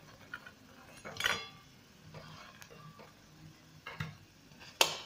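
Steel spoon scraping and knocking against a frying pan as fried aloo tikkis are lifted out, a few separate scrapes and clinks, the sharpest one near the end.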